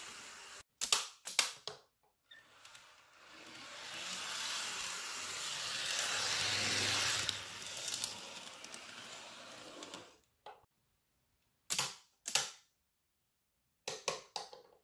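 N scale model commuter train (Atlas ALP-45DP with multilevel coaches) running on sectional track: the whir of its motor and wheels swells as it passes close and then fades away. Sharp clicks come around a second in, and several more come in the last few seconds.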